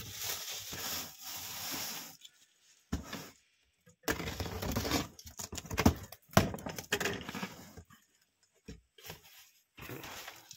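A taped, plastic-wrapped cardboard parcel being opened: packing tape and plastic film tear and rustle, and cardboard scrapes and bumps. The rustling pauses about two seconds in, then comes back with several sharp knocks before tailing off.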